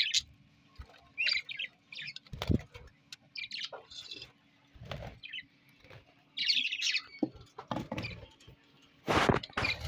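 Budgerigars chirping in short, scratchy warbling bursts, mixed with several knocks and rustles from handling the cage or nest box; the loudest rustling comes about nine seconds in.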